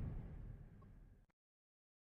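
The tail of a thunder sound effect: a low rumble dying away in the first second, then complete silence.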